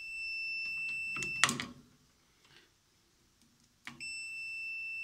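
Continuity beeper of an N56FU digital multimeter sounding a steady high-pitched tone while the test probes are shorted together: the zero-ohm continuity signal of a short. It cuts off with a click about one and a half seconds in, then beeps steadily again from near the end.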